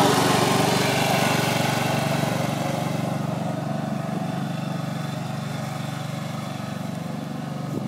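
Ride-on lawn mower engine running steadily as the mower drives away, growing fainter over the first few seconds.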